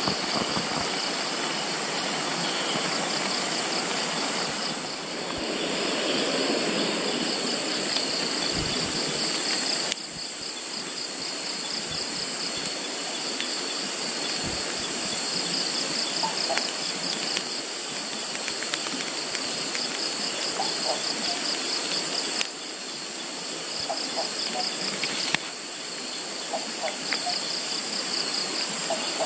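Crickets and other night insects trilling in a pulsing chorus, over a steady rushing background noise.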